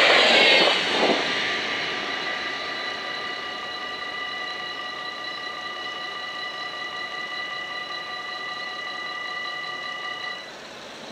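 The tail of an NS ICMm electric train passing, its noise fading over the first second or two. Then the level-crossing bells ring steadily as a chord of several high tones while the half-barriers rise, and stop about ten and a half seconds in as the barriers reach the top.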